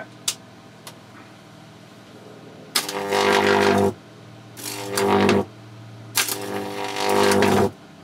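High-voltage arc from two parallel-wired microwave oven transformers buzzing across a circuit board in three loud bursts of about a second each, a harsh mains hum with strong overtones. Two short clicks come shortly before the first burst.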